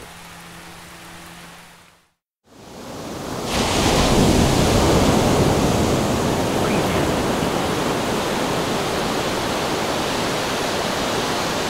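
A quieter sound with a low steady hum ends about two seconds in. After a moment of silence, a loud, steady rushing noise fades in and holds, the kind heard from a waterfall or heavy surf.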